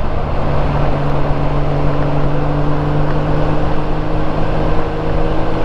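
Honda Gold Wing GL1500 flat-six engine running at a steady speed while riding, heard as a constant hum under a steady rush of wind and road noise. Some higher engine tones come in about a second in.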